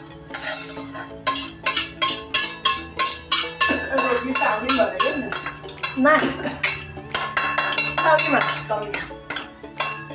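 A steel spoon tapping and scraping cooked dal off a steel plate into a steel kadai, with a spatula stirring the pan: a quick run of ringing metal clinks, about three or four a second.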